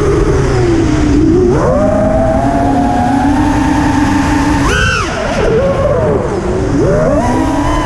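Brushless motors and five-inch propellers of an FPV quadcopter (T-Motor F60Pro II motors) whining, the pitch rising and falling with the throttle. There is a sharp climb about a second and a half in and a brief high punch about five seconds in, then a dip and another climb near the end, over steady wind rush.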